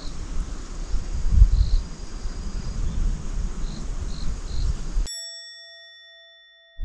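Lakeshore outdoor ambience with a low wind rumble and a few faint high insect chirps, then about five seconds in it cuts off abruptly to a single bell-like chime sound effect, marking the fishing as a failure, that rings out and fades away.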